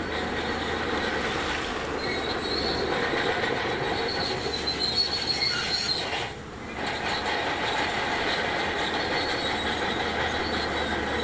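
Shantui DH17C2 crawler bulldozer working, its engine running under the squeal and clank of its steel tracks. A high squeal stands out a couple of seconds in, and the sound dips briefly about six and a half seconds in.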